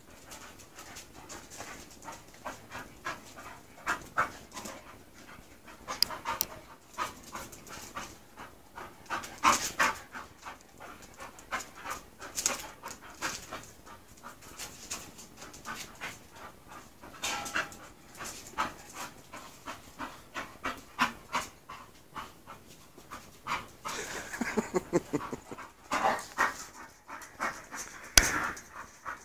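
English bull terriers panting hard in quick, uneven breaths while playing and mounting. A single sharp click near the end.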